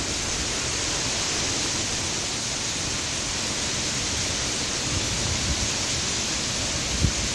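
Heavy cyclone rain falling in a steady, dense hiss, with a short low gust buffeting the microphone near the end.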